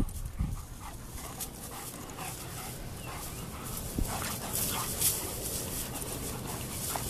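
A dog whimpering in short, faint calls, mostly in the second half, with a sharp click about four seconds in.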